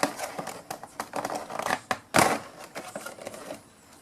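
Plastic packaging crinkling and crackling in irregular bursts as it is handled, the loudest about two seconds in, while a model aircraft is unwrapped from its bubble wrap.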